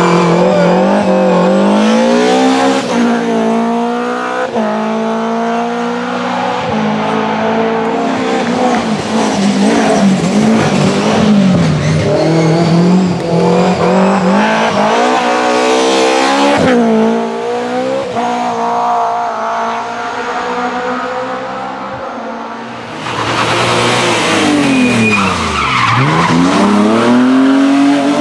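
BMW rally car engine at hard throttle, revs climbing and dropping repeatedly through gear changes. Near the end the revs fall right down as the car slows hard, then climb steeply again as it accelerates away.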